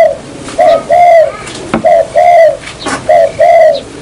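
Puter dove (ringed turtle dove) cooing over and over: three two-part coos, each a short note followed by a longer one, coming about every second and a quarter.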